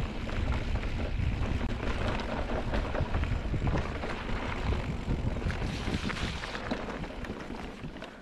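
Wind buffeting the microphone of a camera on a moving mountain bike, a gusty low rumble mixed with scattered small rattles from riding over the trail. It eases off near the end.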